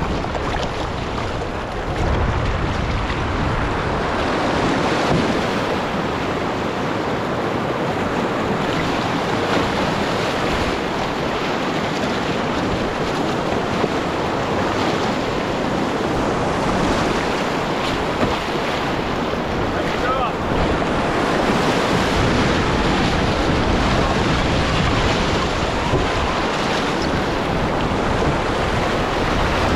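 River water rushing and splashing steadily around a racing canoe, with wind noise on the microphone.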